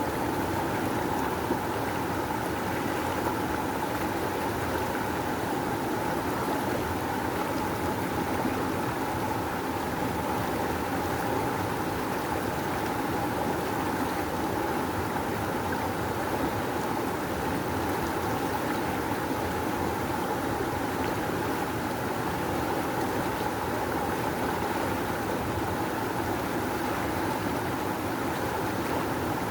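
Rushing river water, a steady full-bodied rush with no breaks or changes.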